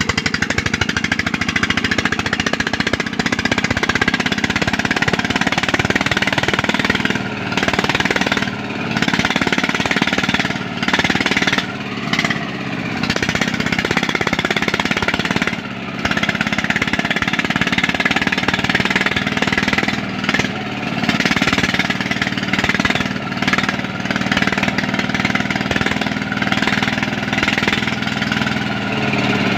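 Single-cylinder diesel engine of a công nông farm cart running steadily with a rapid, knocking chug while it hauls a load of coffee sacks, dipping briefly in level now and then.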